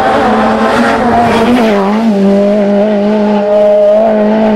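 Lancia 037 rally car's supercharged four-cylinder engine held at high, nearly steady revs, dipping briefly about two seconds in.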